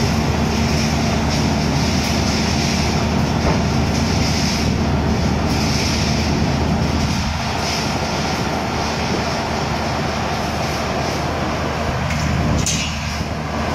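SANY rotary drilling rig's diesel engine running steadily, with a brief high-pitched squeak near the end.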